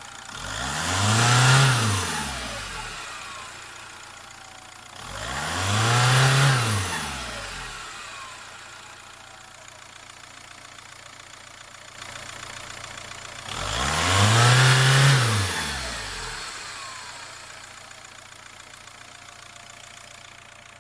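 VW Golf Mk IV 1.9 TDI (ARL) diesel engine revved three times from idle, each rev rising and falling in pitch. After each rev a thin falling whistle from its Garrett GT1749VB turbocharger lingers as the turbo spools down, over the diesel idle.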